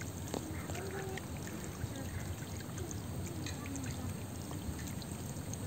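Shallow water trickling into a bamboo fish trap in a rice-paddy drain, with scattered small splashes of punti fish jumping onto the net.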